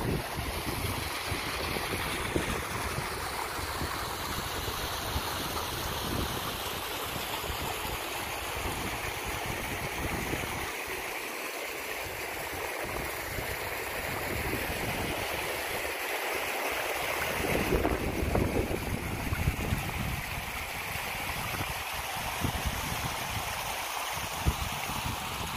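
Small hill stream babbling and trickling over stones, a steady rushing hiss, with wind gusting on the microphone.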